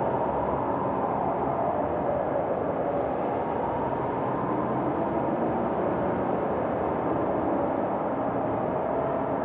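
Steady, even wash of city traffic noise.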